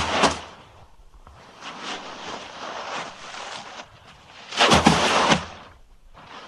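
Human bodyfall sound effects: a heavy fall with scuffling right at the start, quieter shuffling and rustling, then a second heavy fall with scuffle about five seconds in.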